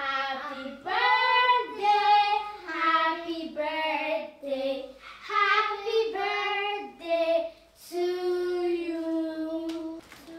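Children and women singing a birthday song together, in short sung phrases, ending on a long held note.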